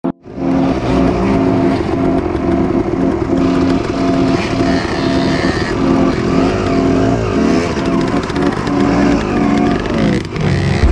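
Two-stroke enduro dirt bike engines, a KTM 250 XC-W among them, running steadily at idle, with a brief rev rising and falling about seven seconds in.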